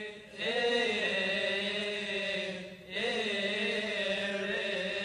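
Coptic liturgical chant sung by male voices: two long, held, melismatic phrases over a steady held low note, with a short break about three seconds in. This is the sung response to the priest's blessing.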